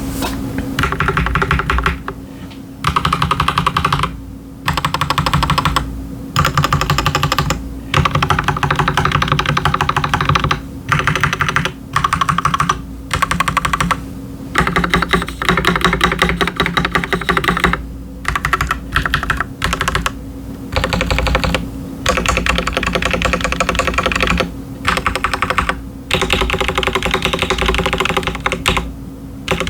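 Typing on a stock Akko 3098S mechanical keyboard with linear red switches and ASA-profile PBT keycaps. It comes as rapid runs of keystrokes, each broken by a short pause every second or two.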